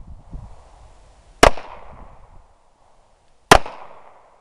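Two pistol shots from a Smith & Wesson Bodyguard 380, a compact .380 semi-automatic, about two seconds apart, each followed by a short echo.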